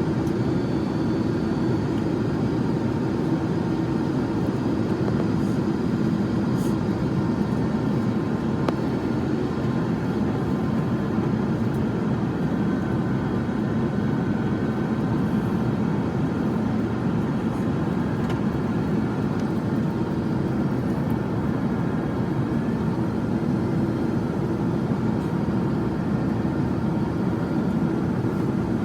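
Steady cabin noise inside an Airbus A350-900 airliner on its approach to land: an even rush of engine and airflow noise with a low steady hum.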